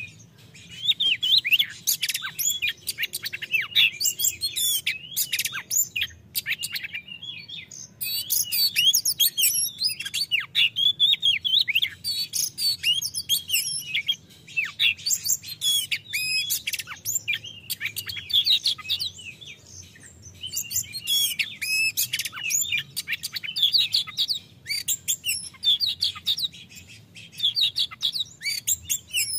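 Oriental magpie-robin (kacer) singing in full, open song: quick runs of varied whistled notes and sweeping up-and-down phrases, broken by short pauses every several seconds.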